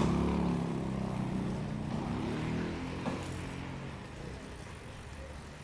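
A motor vehicle's engine running close by, then fading away over about four seconds.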